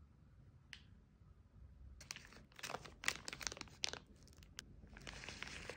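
Clear plastic snack wrapper crinkling as it is handled, in crackly bursts for about two seconds midway and again near the end.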